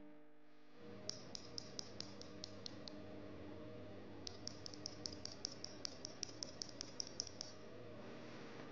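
A loose red mechanical keyboard switch pressed repeatedly between the fingers, its plastic stem giving short sharp clicks. There is a run of about eight clicks, a pause of over a second, then about sixteen more, roughly five a second.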